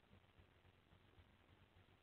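Near silence: a faint, steady background hiss with a low hum.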